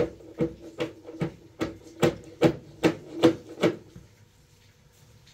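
An even run of hard strikes, about two and a half a second, with a ringing tone held under them. The strikes stop about four seconds in.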